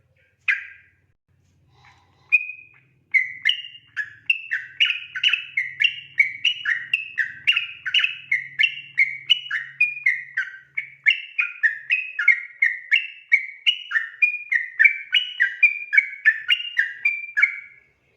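Yellow-vented bulbul (trucukan) singing: a few separate notes, then from about three seconds in a long, rapid run of short whistled notes at about three a second, the continuous 'ropel' song, stopping just before the end.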